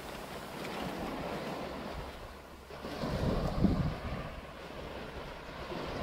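Small waves breaking and washing up on a sandy shore, with wind rumbling on the microphone; a louder, deeper rush comes about three seconds in.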